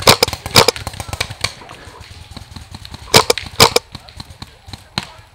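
Paintball markers firing: a string of sharp pops. The loudest come in two pairs about half a second apart, one at the start and one about three seconds in, with fainter shots between them and near the end.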